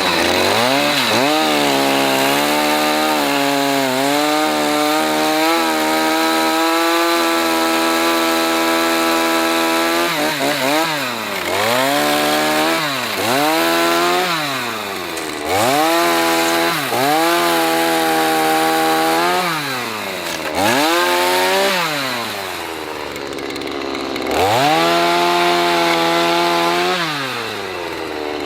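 Small two-stroke chainsaw cutting firewood. It is revved to full throttle and held there through the cuts, then drops back toward idle, rising and falling several times, with one longer stretch at full speed about a third of the way in.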